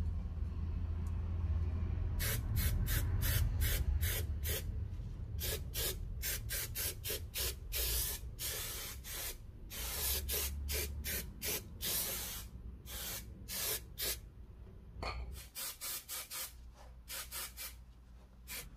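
Aerosol spray adhesive sprayed in many rapid short bursts of hiss, with a few longer sprays of about a second in the middle. The bursts start about two seconds in and run until just before the end.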